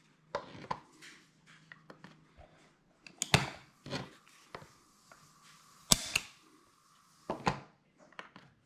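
Smith & Wesson Model 500 revolver being cocked and dry-fired in single action, its hammer snapping down each time a trigger pull gauge draws the trigger. There are four sharp metallic clicks spread a couple of seconds apart, with lighter handling ticks between them.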